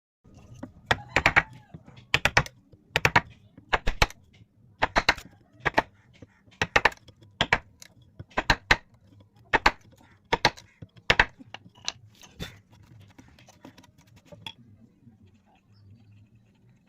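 Sharp taps or knocks in quick clusters of two to four, about once a second, stopping about fourteen and a half seconds in.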